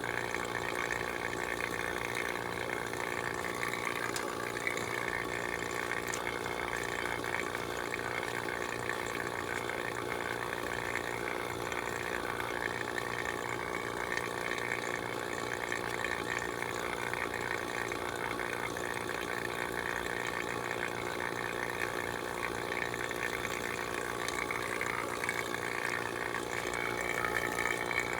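Refrigeration vacuum pump running steadily, with an even motor hum, evacuating air and moisture from the new heat pump's refrigerant lines.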